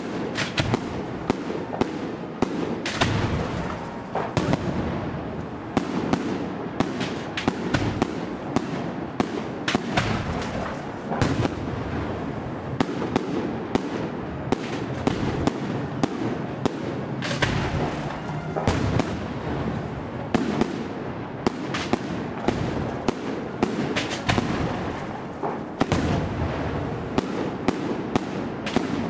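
Aerial firework shells bursting in quick, continuous succession: sharp bangs several times a second over a steady din.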